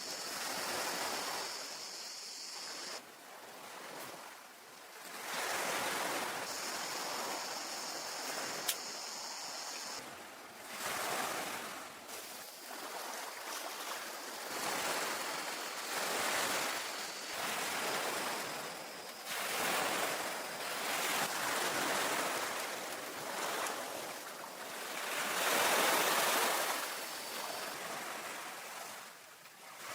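Ocean waves washing onto a beach, the surf swelling and falling back in surges every few seconds.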